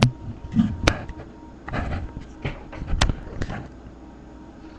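Plastic LEGO bricks clicking and clacking as a coin is put into a homemade LEGO gumball machine and its mechanism is worked to release a gumball. There are a series of separate sharp clacks, the loudest about a second in and about three seconds in.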